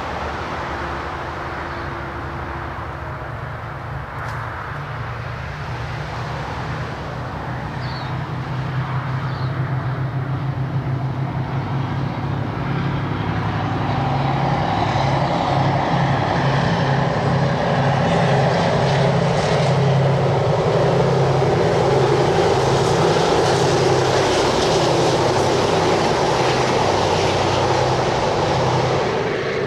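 Two Mitsubishi-built Dj class diesel-electric locomotives under power, hauling a train of carriages past: a steady low engine drone. It grows louder from about halfway through, is loudest a little after that, and eases slightly near the end.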